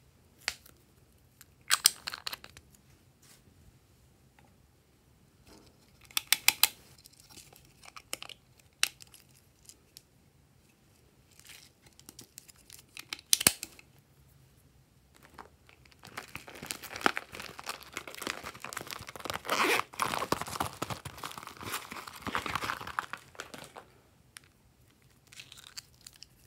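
Close-up handling of plastic slime add-in containers and packaging: three short clusters of sharp plastic clicks, then about eight seconds of dense crinkling and crackling.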